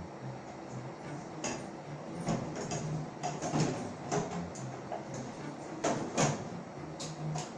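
Scattered small clicks, knocks and scrapes from handling a Jetbeam HR30 headlamp flashlight as the battery goes in and its caps are fitted.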